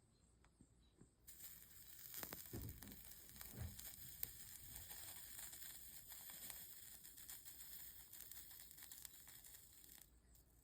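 Faint sizzling and crackling of flux as a soldering iron melts solder along a stained-glass seam, starting about a second in and stopping near the end. Two soft low thumps come a couple of seconds in.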